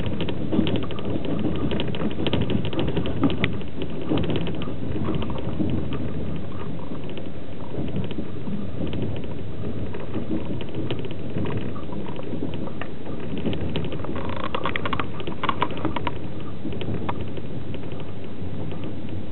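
Passenger train running at speed, heard from inside an open-plan sleeper carriage: a steady rumble of wheels on track with scattered clicks and knocks, and a short spell of denser rattling about three quarters of the way through.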